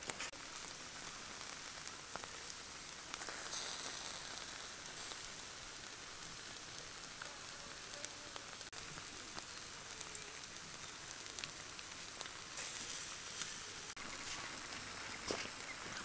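Salt-crusted whole fish sizzling on a grill grate over charcoal: a steady hiss with scattered small crackles, swelling twice for a second or two.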